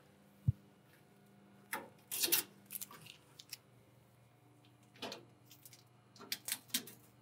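Faint scattered rustles and ticks of shipping tape being pulled free from a biosafety cabinet's UV germicidal lamp by its hanging strings, with a short low knock about half a second in, over a low steady hum.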